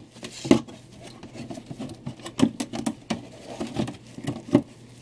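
Cardboard comic short box being handled: irregular light taps, knocks and rustles of cardboard, about a dozen in all.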